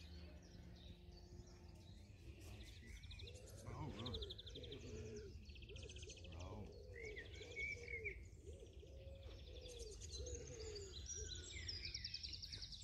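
Small birds chirping and trilling, faint, many short calls over a low steady rumble.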